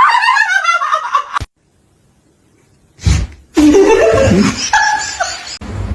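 A person laughing hard in rapid, high-pitched bursts that stop suddenly about a second and a half in. After a short silence comes a low rumbling noise with a wavering call.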